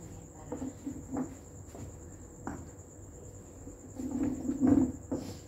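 Knocks and scrapes of concrete blocks and clay pots being handled and set down. The loudest scrape and clunk comes about four and a half seconds in. Under it runs a cricket's steady high trill.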